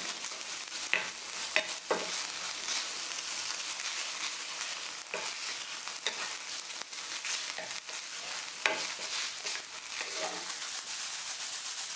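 Ground beef sizzling in a nonstick frying pan while being stirred with a wooden spatula: a steady hiss of frying with scattered scrapes and taps of the spatula against the pan.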